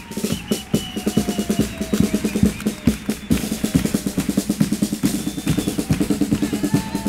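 Chirigota's bombo (bass drum) and caja (snare drum) playing a fast, steady carnival beat.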